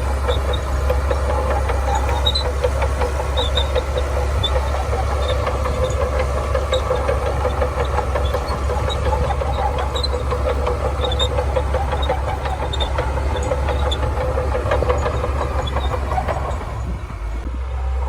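Shantui bulldozer's diesel engine running steadily while working, with scattered faint ticks over it. The engine note eases off near the end.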